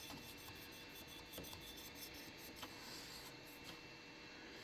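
Near silence: faint room tone with a steady faint hum and a few soft clicks and rubs.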